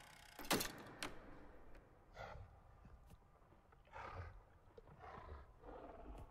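Two sharp knocks in the first second, then four short, soft animal snorts from giraffes, spaced about a second apart.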